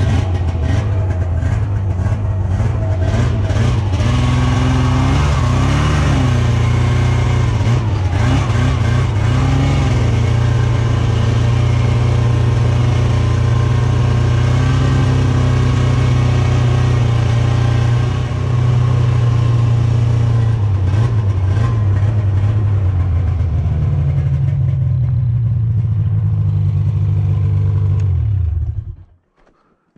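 Ski-Doo Grand Touring snowmobile engine running while the machine is ridden along a snowy trail, its pitch rising and falling with the throttle. The engine is switched off and cuts out near the end.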